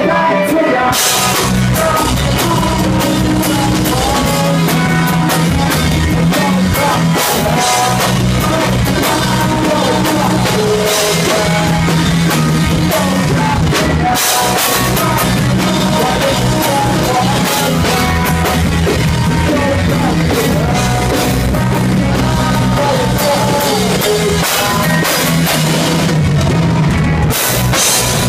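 Live rock band playing loud: electric guitars and a drum kit, with a singer's voice over them, going on without a break.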